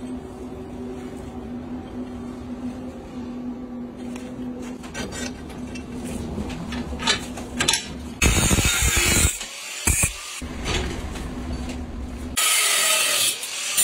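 Metalworking at a bench vise, with a flat steel bar being bent and worked. A steady low hum runs under the first half, with a few knocks and clanks a little past the middle, then loud rushing noise that cuts in and out abruptly in the second half.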